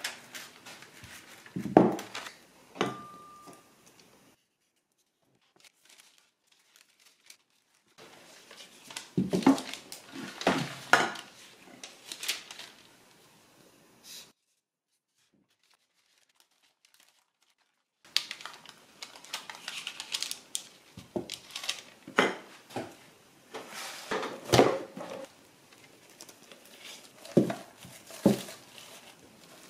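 Kitchen work sounds: crinkling, clinks of pans and utensils, and knocks on the counter, coming in irregular stretches broken by two silent gaps.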